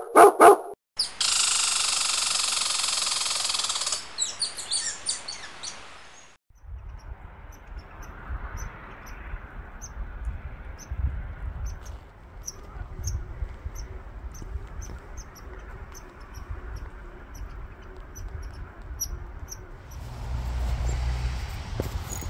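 A dog barks sharply a couple of times at the very start, followed by a loud hiss that fades out over the next few seconds. Then wind buffets the microphone outdoors, with faint, short high chirps about once a second, and the buffeting grows stronger near the end.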